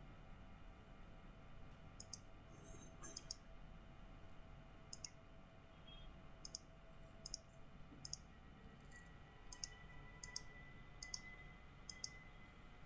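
Sharp clicks, mostly in quick pairs (press and release), repeated every second or so, typical of a computer mouse button being clicked. A faint steady hum sits underneath.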